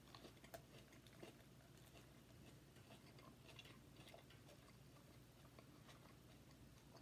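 Faint close-mouthed chewing of a mouthful of burger, with a few soft mouth clicks in the first second and a half; otherwise near silence.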